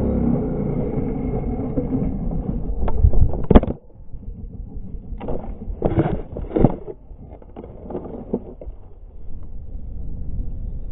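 Suzuki RM125 two-stroke dirt bike engine running, then a crash in sand: a loud impact about three and a half seconds in, after which the engine sound stops abruptly. Several thuds and scuffs of rider and gear tumbling follow, then a low steady rumble near the end.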